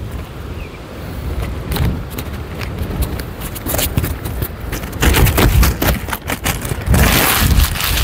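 Strong wind buffeting the microphone: a gusty low rumble with crackling, growing louder about halfway through.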